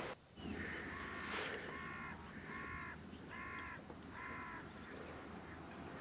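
A crow-family bird cawing five times, about one caw every second. Thin, high-pitched short calls of a small bird come at the start and again about four seconds in.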